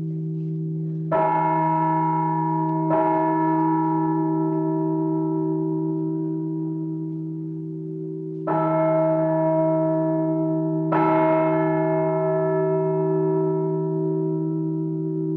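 A bell tolling, struck four times in two pairs with a longer pause between the pairs. Each strike starts sharply and rings on with a slowly fading, many-toned hum that carries through the gaps.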